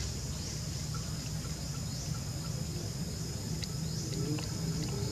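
Outdoor insects chirring: a steady high-pitched drone with short rising chirps repeating a few times a second, over a continuous low rumble of background noise.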